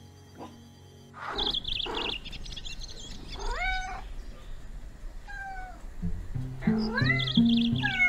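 Cat meowing several times, each meow rising then falling in pitch, over background music that comes in about six seconds in.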